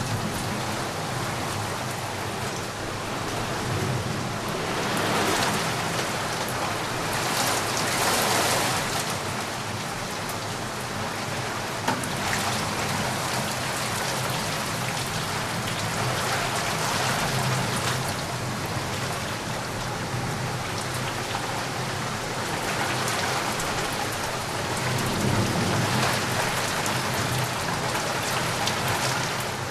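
Steady heavy rain falling, its hiss swelling and easing every few seconds, with a single sharp tick about twelve seconds in.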